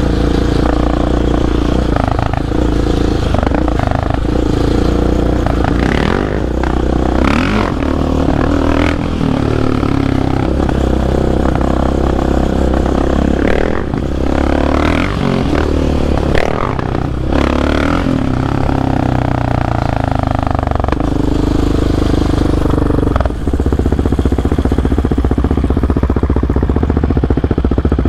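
Single-cylinder four-stroke sport-quad engine running under throttle on a dirt trail, its pitch rising and falling with the throttle. Frequent clattering knocks from the machine and debris run through it.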